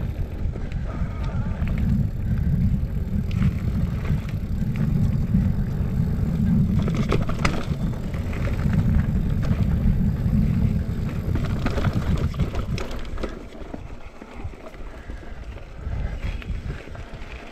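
Mountain bike rolling fast over a dirt forest trail, heard from a shaky action camera: a heavy wind rumble on the microphone with clatter and clicks from the bike over roots and rocks. The rumble eases about 13 seconds in.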